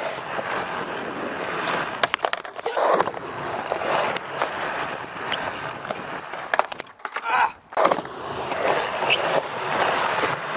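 Skateboard wheels rolling on a skatepark ramp, broken several times by sharp clacks as the board is popped and lands.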